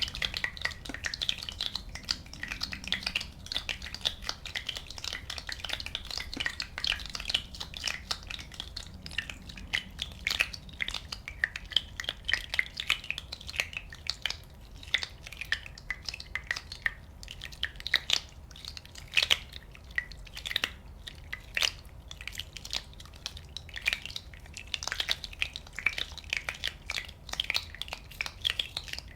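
Bubbles popping and water dripping: a dense, irregular crackle of many small pops, with sharper single pops here and there.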